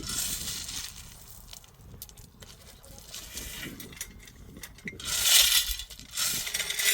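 Small pebbles rattling and pouring, in two loud bursts of clattering: once at the start and again from about five seconds in.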